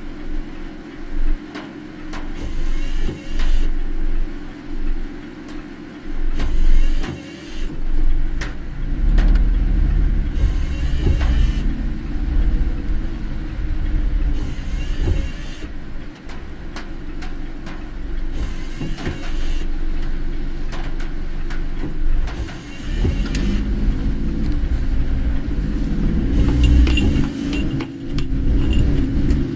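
A car driving in heavy rain, heard from inside: steady road and tyre rumble with rain on the car. A swishing hiss comes and goes every three to four seconds, and scattered ticks run through it.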